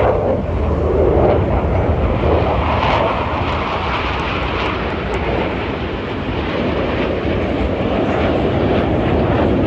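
Aircraft engine noise from an air-show flyby: a loud, continuous rush with a heavy low rumble. It eases a little midway and builds again near the end.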